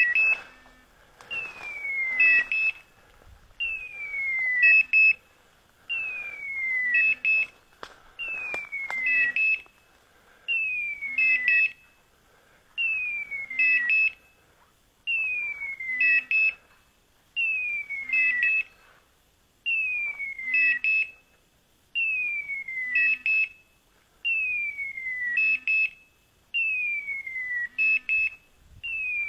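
Hunting dog's beeper collar sounding its point signal. Each round is a falling, whistle-like tone followed by a few quick beeps, repeating about every two seconds. This pattern is the sign that the dog has stopped and is holding point.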